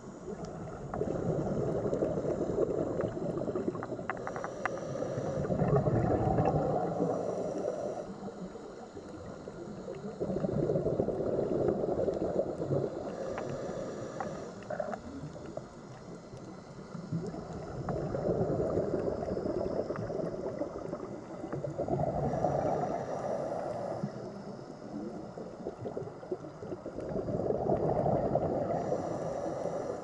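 Scuba diver breathing through a regulator underwater: slow swells of bubbling exhalation about every five or six seconds, with short faint hisses between them.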